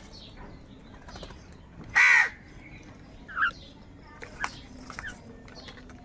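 House crows calling: one loud, harsh caw about two seconds in and a shorter caw about a second later, with fainter calls and a few light clicks in between.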